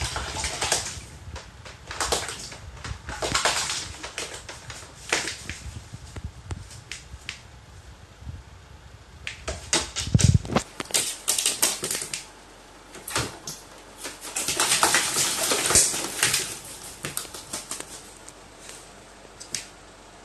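Carrion crow bathing in a plastic bucket of water: repeated bouts of splashing and wing flapping, with short pauses between them. A low thump comes about halfway through.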